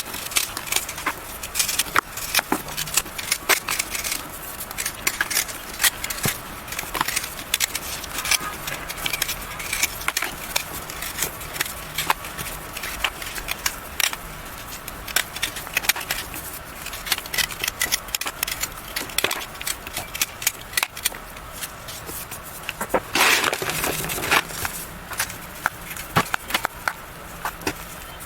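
Molded blocks of yellow gym chalk being crushed and crumbled, a dense run of sharp crunches and small cracks, with a louder, longer crumbling stretch about three quarters of the way through.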